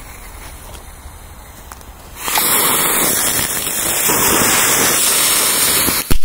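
A lit firework hissing loudly and steadily for about four seconds, starting about two seconds in. The first sharp firecracker bangs come right at the end.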